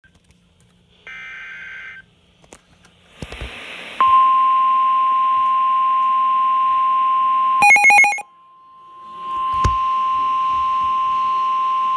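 Radio emergency alert tone: a short electronic beep and a burst of hiss, then a long steady single-pitch alarm tone, the NOAA Weather Radio warning alarm tone that comes before a warning. Just before the middle it breaks off with a quick warbling burst and a swell of static, then sounds again.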